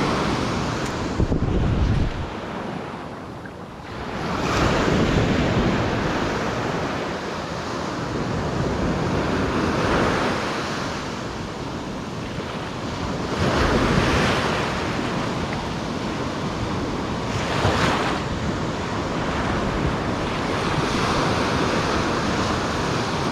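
Surf breaking on an ocean beach, waves washing in and swelling every four to five seconds, with wind buffeting the microphone, heaviest in the first couple of seconds.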